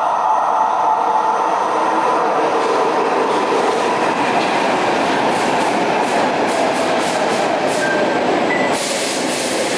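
Stockholm metro train pulling into an underground station and running along the platform, a steady rush of wheels and motors echoing off the station walls. In the second half the wheels click over rail joints about three times a second, and there is a brief high squeal near the end.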